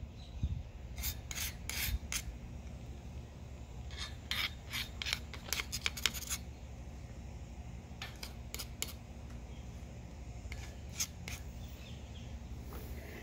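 A thin stick scraping and smearing lithium grease along the steel slide bar of a Wilton 1755 bench vise's movable jaw, in several bursts of short strokes. A steady low hum runs underneath.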